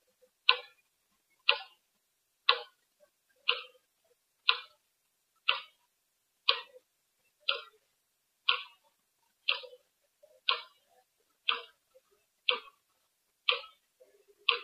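Clock ticking steadily, one short sharp tick every second, about fourteen ticks in all.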